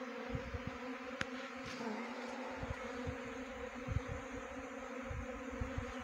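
Many honey bees flying and buzzing: a steady hum, with scattered low thumps on the microphone and a single click about a second in.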